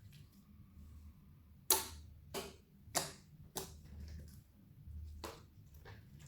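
Clear slime being worked by hand, giving sharp popping clicks as air pockets burst, about six in all, the first the loudest.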